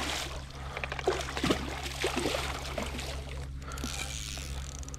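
Hooked steelhead splashing and thrashing at the water's surface in the shallows. The biggest splash comes at the start, followed by smaller irregular splashes.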